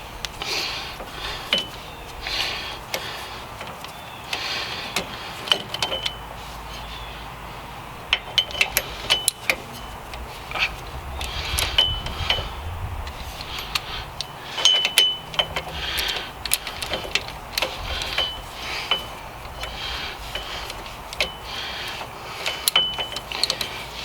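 Hand-tool work on a minivan's rear hub mounting bolts: repeated short wrench strokes, sharp metal clicks and clinks, and brief high squeaks.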